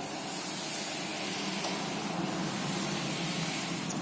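Cotton gloves and a soft leather camera case rubbing and rustling steadily as a Ricoh 500G film camera is drawn out of the case, with a small click near the end.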